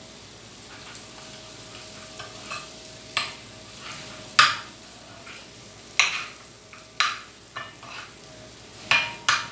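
Melted butter with red pepper sizzling in a small frying pan while a metal spoon stirs it. The spoon scrapes and knocks against the pan about eight times, the loudest about four and a half seconds in.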